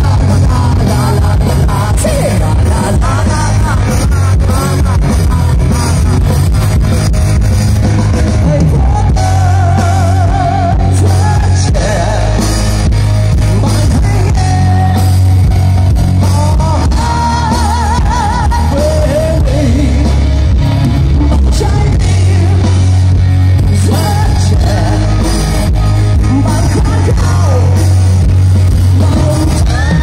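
Live rock band playing at full volume: electric guitars, drums and heavy bass, with a singer's voice over the top.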